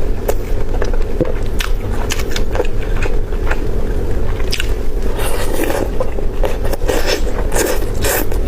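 Chicken being bitten and chewed close to the microphone, with irregular crunches and crackles over a steady low hum.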